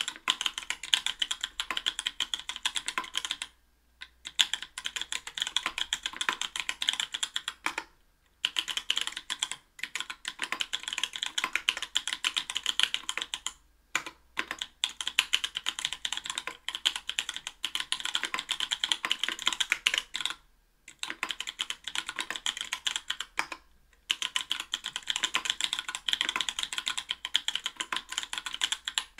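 Continuous typing on an Octagon V3 mechanical keyboard with stock, unlubed NK_ Blueberry 80 g tactile switches, an aluminium plate and GMK keycaps: rapid key clicks in runs of several seconds, broken by five brief pauses.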